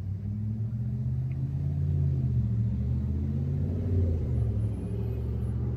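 Low, steady engine rumble with a deep hum, growing slightly louder toward the middle and easing near the end.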